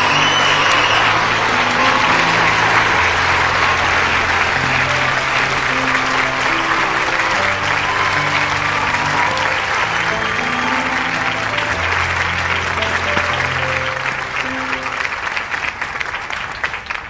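Audience applause over music with a line of long held bass notes; the applause dies away near the end.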